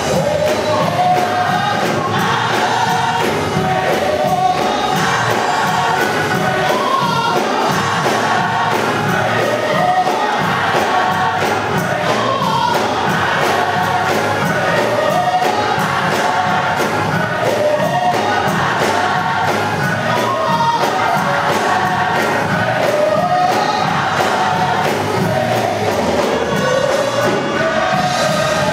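Gospel choir singing in full voice over musical accompaniment, the voices rising and falling in sustained sung phrases.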